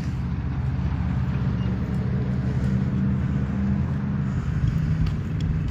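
Steady low engine hum, like a vehicle idling or running.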